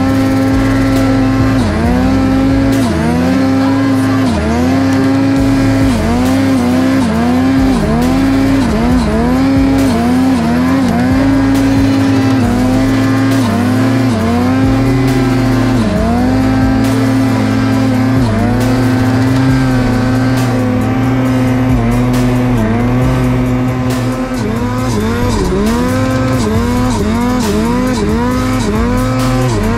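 Two-stroke snowmobile engine running at high revs, around 8,000 rpm, its pitch dipping briefly and climbing back again and again as the throttle is eased and reopened.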